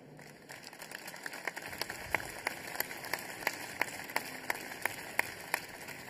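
An audience applauding, with sharp, evenly spaced claps standing out about three times a second through the middle of the applause.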